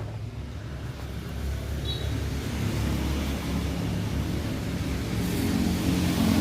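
A car engine running steadily, growing louder over the last few seconds.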